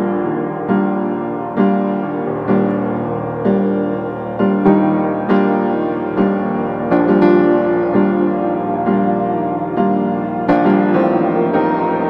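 Background piano music: slow, gentle chords with a new note struck about once a second.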